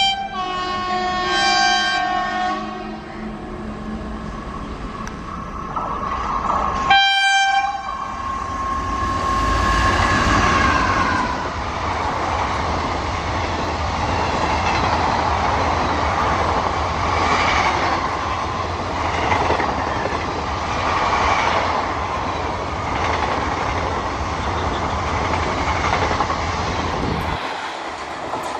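Indian Railways WAP-4 electric locomotive sounding its multi-tone horn for about three seconds as it approaches. After a sudden break there is another short horn blast. Then a long passenger train of ICF coaches runs past with a steady rumble and the clickety-clack of wheels over rail joints.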